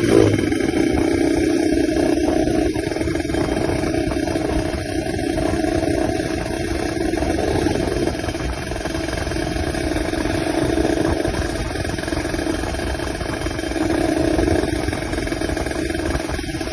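Kawasaki Ninja 150 RR two-stroke single-cylinder engine idling with a 'snoring' (ngorok) note, with a short surge at the start and a milder swell about two seconds before the end.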